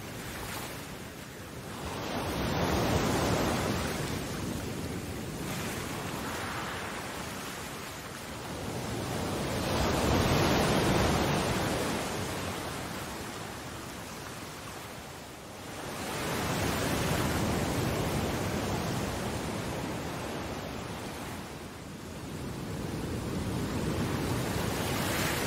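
Ocean waves washing in, a steady rush that swells and fades about every six or seven seconds, four surges in all.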